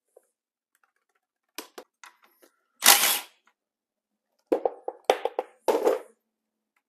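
Clicks and clatter of hand tools and small metal parts at the clutch cover of a Suzuki TS185 engine: a few light clicks, a louder clatter about three seconds in, then a run of rattling knocks near the end.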